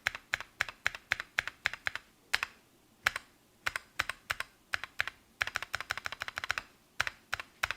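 Spacebar of a Tofu 65 custom keyboard with Tealios V2 linear switches and thick PBT keycaps, pressed over and over. It makes a string of sharp clacks, some spaced apart and some in quick runs, the busiest run coming a little past the middle.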